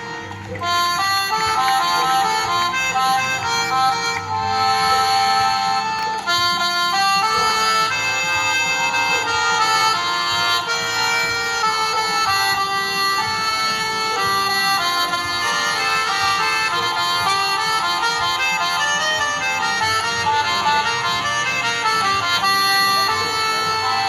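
Music with a reedy lead melody playing at a steady, loud level.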